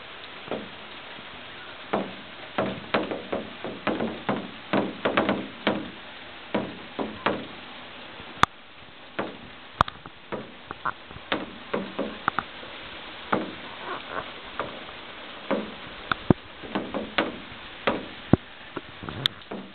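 Steady rain hiss with heavy drops knocking irregularly on a hard surface close by, at times several knocks a second.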